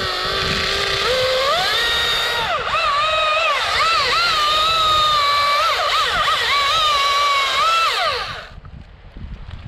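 Husqvarna T540i XP battery-powered top-handle chainsaw making a back cut through a trunk. The electric motor's whine climbs as the chain spins up, dips in pitch again and again as the chain bogs in the wood, then falls away as the trigger is released about eight and a half seconds in.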